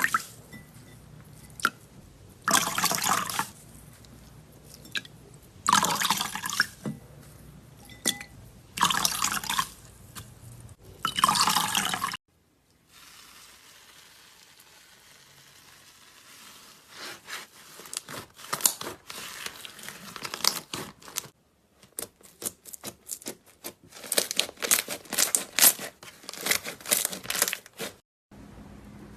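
Slime being squeezed and worked by hand: wet squelching bursts about every three seconds, then a second stretch of rapid sticky clicks and pops.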